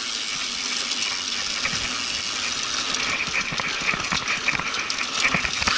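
Steady rushing hiss of a mountain bike rolling along a dirt singletrack, heard through a handlebar-mounted action camera, with scattered light clicks and rattles from the bike.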